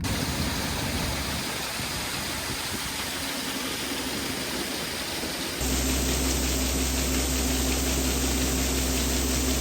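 Engine running steadily. About five and a half seconds in, it changes abruptly to a louder engine drone with a steady low hum.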